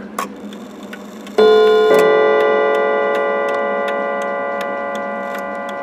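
Seth Thomas 89 clock movement ticking steadily as its chime hammers strike the coiled gongs for the quarter-past chime. The first note comes about a second and a half in and more notes join half a second later, then they ring on and slowly fade. The chime is now working correctly after the strike repair.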